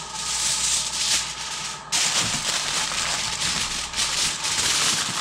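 Aluminium foil being pulled off the roll and crinkled as it is pressed down over a baking dish, with louder crinkling starting suddenly about two seconds in.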